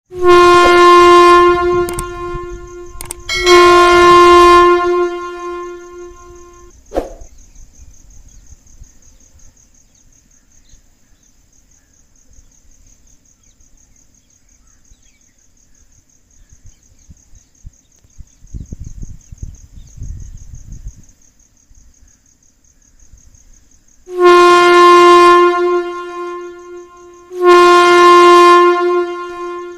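Train horn sounding from out of sight in two pairs of long blasts of about a second and a half each, one pair at the start and one near the end, each pair trailing off in a slow echo. A steady high insect trill runs underneath.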